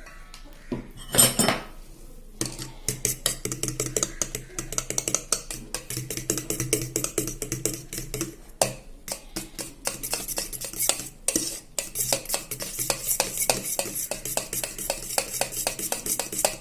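Eggs being beaten in a bowl with a utensil: rapid, rhythmic clicking of the utensil against the bowl, several strokes a second with a few brief pauses. A single louder knock comes about a second in, before the beating starts.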